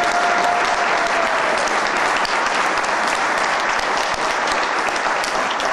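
Audience clapping steadily, dense applause at the end of a sung performance.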